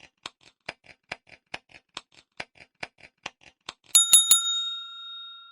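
Countdown timer sound effect: a clock ticking at about four to five ticks a second, alternating louder and softer like a tick-tock, then about four seconds in a bright bell struck three times in quick succession, ringing on and fading.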